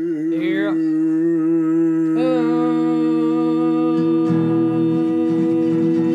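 Two voices humming long held notes together in harmony, the second, higher voice joining about two seconds in.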